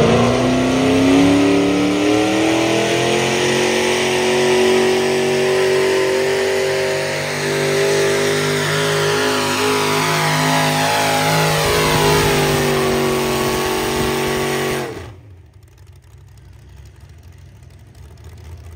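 Classic modified Oliver pulling tractor's engine revving up sharply, then held at high revs under load as it drags the weight-transfer sled. The engine sound cuts off abruptly about fifteen seconds in, leaving a much quieter background.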